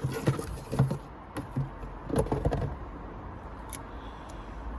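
A few light knocks and clicks from handling the removed metal diesel injector pipe and its fittings, over a low steady hum.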